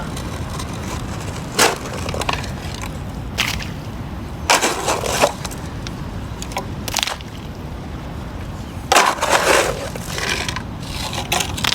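Shovel scraping and digging into muddy dirt in six short, irregular strokes over a steady low rumble.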